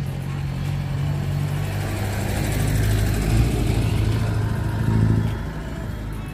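Small canopied light truck driving past close by and pulling away, its engine running louder as it passes about three to five seconds in, then fading as it moves off.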